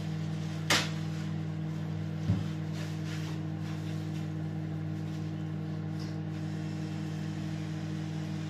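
Steady low mechanical hum of a running kitchen appliance, with a sharp click just under a second in and a dull thump about a second and a half later.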